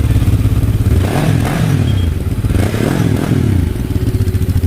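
Fekon Falcon X400's 400cc parallel-twin engine, just started, idling and blipped twice on the throttle. The revs rise and fall back at about one second and three seconds in, then the engine settles to idle.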